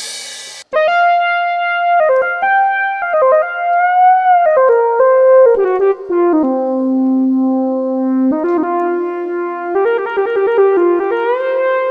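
Yamaha MODX synthesizer playing a slow keyboard melody of held notes and chords, in an electric-piano-like sound, with one note sliding in pitch about four seconds in. A cymbal-like hit is fading as it begins.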